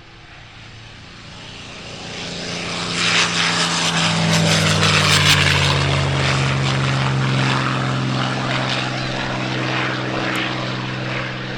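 Piston-engined propeller aircraft flying past low. Its engine sound builds over the first few seconds, is loudest around the middle, and drops slightly in pitch as it passes.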